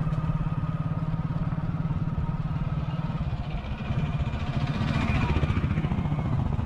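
A vehicle's engine running steadily at low speed, a little louder from about four seconds in.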